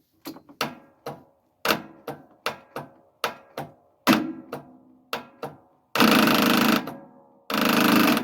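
Lawnmower with a weak, run-down battery being started: the starter clicks sharply over and over, about two or three times a second, then near the end the starter motor cranks the engine in two short bursts of about a second each without it firing.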